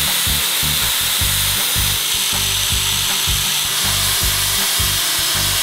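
Angle grinder with a cutoff wheel cutting through a metal motorcycle subframe support: a loud, steady abrasive hiss. A music bed with a steady beat plays underneath.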